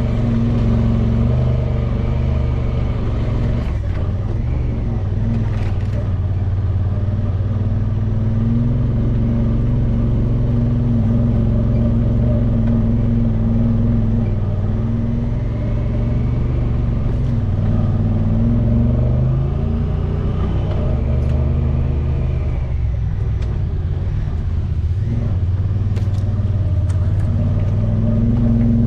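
Side-by-side UTV engine running steadily at low speed while the machine climbs a steep dirt trail, its pitch rising and falling a little with the throttle. There are a few brief clicks along the way.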